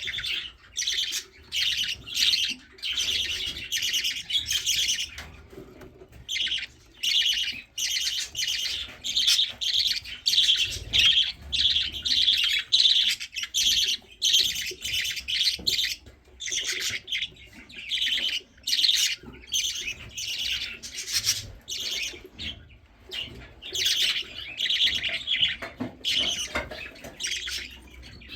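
Baby budgerigar chicks begging for food: raspy, high chirping calls repeated in quick bursts with brief pauses.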